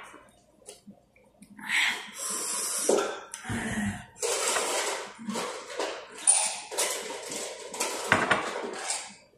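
Noisy mouth sounds of a person eating very spicy noodles: a run of about eight hissing, slurping bursts starting about a second and a half in, each half a second to a second long, with light clicks of a fork on the bowl.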